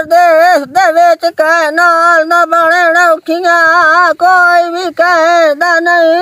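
A high voice wailing a loud, sing-song lament in wavering melodic phrases, keening in grief.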